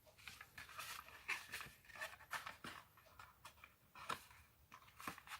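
Faint, irregular rustles and light taps of cardstock being handled and pressed as it is folded.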